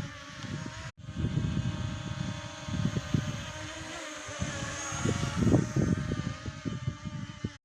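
Small S1S quadcopter drone's propellers whining steadily at several pitches, with strong wind buffeting the microphone in uneven gusts. The sound breaks off briefly about a second in.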